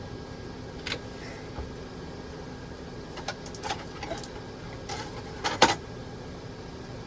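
Kitchen utensils and cookware clinking and knocking, a handful of short light clicks with a sharper knock near the end, over a steady low hum.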